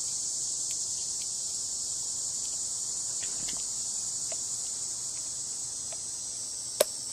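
Small clicks of a Canon EOS 70D being handled as its flip-out screen is worked, with one sharp click near the end, over a steady high-pitched hiss.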